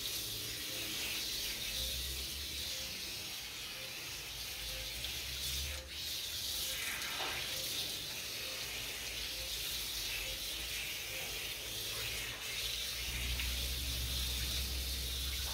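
Water running from a garden hose over a small dog and splashing onto a concrete floor, a steady hiss.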